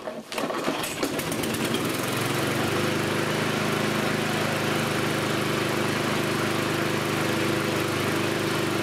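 Petrol lawnmower engine starting up, firing faster over the first couple of seconds, then settling into a steady even run.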